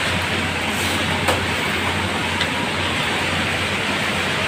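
Steady rain falling on garden trees and lawn, an even, unbroken hiss.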